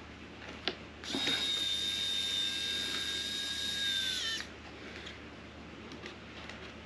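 Small electric screwdriver or drill running for about three and a half seconds, a steady high-pitched whine that dips slightly in pitch just before it stops. A single sharp click comes just before it starts.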